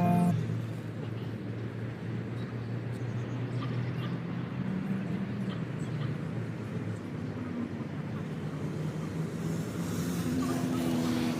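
Steady low rumble of an engine, with a slowly falling engine tone and rising hiss coming in near the end, as of a vehicle passing.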